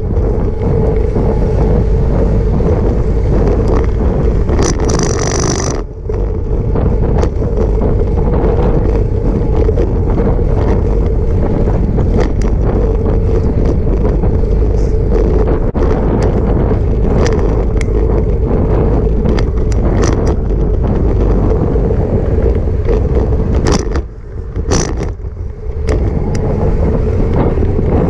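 Wind buffeting the microphone of a camera riding on a moving bicycle, mixed with the rumble of tyres on the path and scattered small clicks and rattles from the bike. The noise briefly drops about six seconds in and again for a couple of seconds near the end.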